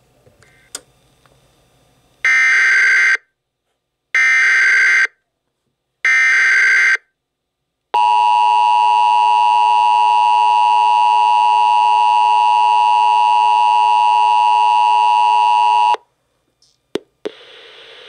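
Emergency Alert System decoder playing an incoming alert: three screeching bursts of SAME header data, about a second each and two seconds apart, then the steady EAS attention signal tone for about eight seconds, announcing a civil emergency message.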